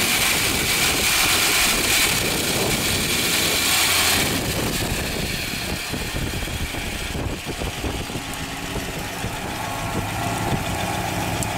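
1965 Dodge Coronet 500's fuel-injected 318 poly V8 idling, heard close to the open engine bay. It is louder and hissier for the first four seconds, then settles to a quieter, steady idle.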